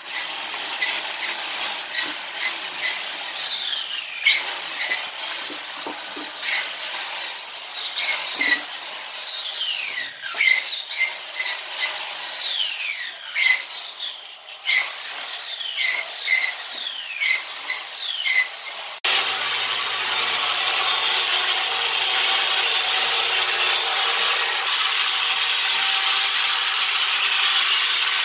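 Makita angle grinder with a polishing pad working over a painted concrete floor. Its high whine sags in pitch each time the pad is pressed into the floor and picks up again, over and over. About nineteen seconds in it changes suddenly to a steadier, rougher grinding sound.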